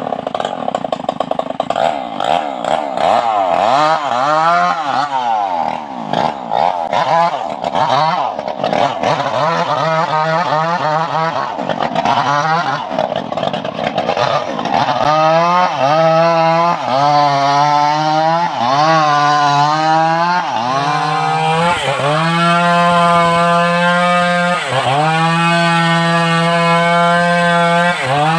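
Stihl MS381 two-stroke chainsaw running at high revs, then throttled up and down over and over for about twenty seconds, before settling into a steady idle near the end.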